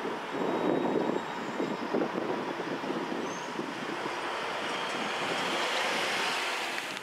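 Steady rumble and hiss of a train receding past a level crossing, with wind buffeting the microphone; the hiss swells higher and louder toward the end, then cuts off suddenly.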